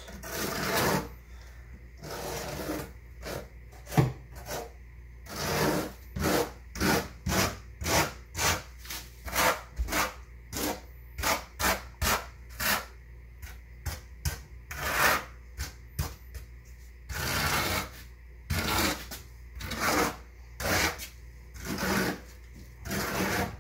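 Steel notched trowel scraping through mortar spread on a plywood subfloor, combing grooves in quick repeated strokes, one to two a second. There is one sharp knock about four seconds in.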